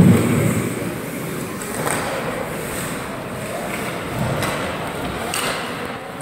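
Ice hockey game sounds in a rink: skates scraping the ice, with a few light stick and puck clacks. A heavy thud against the boards right at the start.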